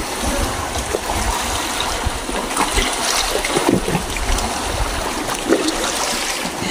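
Sea water sloshing and splashing, with a low, irregular rumble underneath.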